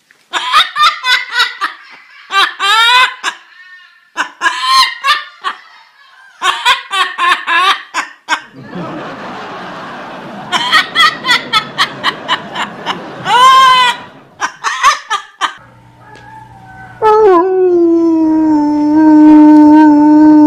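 Amazon parrot imitating human laughter: runs of short, high-pitched ha-ha bursts with a loud squawk about two-thirds of the way through. Near the end a dog gives one long, steady, low howl.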